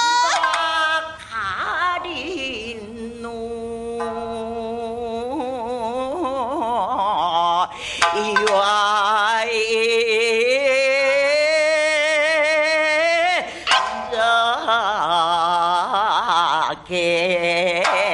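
Female rōkyoku (naniwa-bushi) singing: long, drawn-out melismatic notes with heavy vibrato in several phrases broken by short breaths, over shamisen accompaniment.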